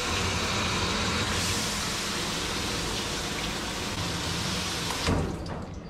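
Water running from a grooming tub's hose sprayer, a steady hiss as the water is warmed up for a dog's bath. There is a knock about five seconds in, after which the flow dies away.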